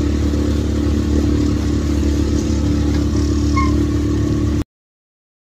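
A steady engine hum, low and even, with no revving. It cuts off suddenly about four and a half seconds in.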